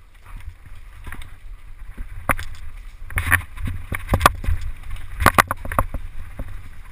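Mountain bike ridden fast down a rough dirt forest trail: repeated sharp clatters and knocks of the bike over roots and bumps, over a low wind rumble on the microphone. It grows louder about two seconds in as the pace picks up.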